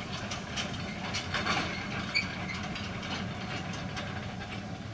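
Narrow-gauge tipping skip wagons clanking and knocking on the rails as they are moved under the clay excavator, over the excavator's steady machinery hum.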